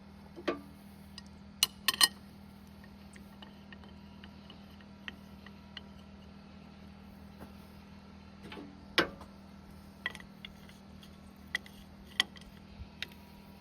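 Scattered sharp metallic clinks and clanks of hydraulic fittings, couplers and hand tools being handled, irregular and a few seconds apart, the loudest about two seconds in and again about nine seconds in. A steady low hum runs underneath.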